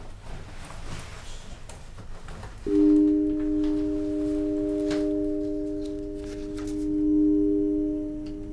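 Soft rustling of clothes as a jacket is put on, then about a third of the way in a held chord of a few pure, steady tones starts abruptly and holds, swelling near the end: a sustained film-score drone.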